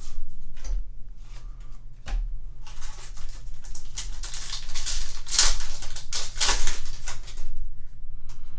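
Foil wrapper of a Yu-Gi-Oh booster pack crinkling and tearing as the pack is opened by hand, a dense crackle lasting several seconds. A few light clicks of cards being handled come before it.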